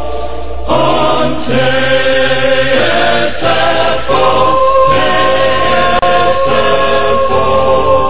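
A choir holding long sustained chords in the closing bars of a sung radio station ID song, moving to a new chord about once a second.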